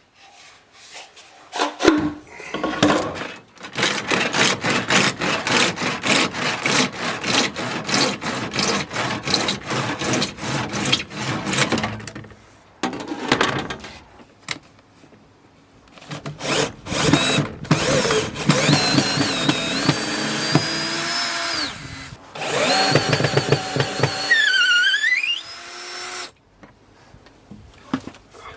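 Power drill running in several long bursts, the first with a fast, rapid pulsing. Near the end its pitch dips and climbs back up.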